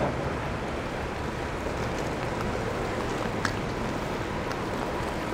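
Steady city street traffic in the rain: engines and tyre hiss on wet pavement, with a short click about three and a half seconds in.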